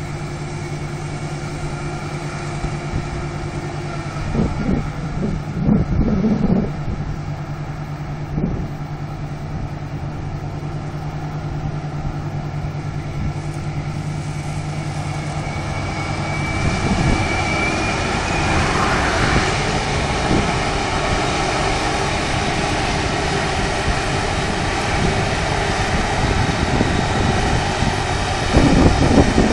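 Claas Lexion 670 combine harvester running, a steady machine hum with a held tone. A few low bumps come around five to seven seconds in, and about sixteen seconds in the sound turns rougher and noisier.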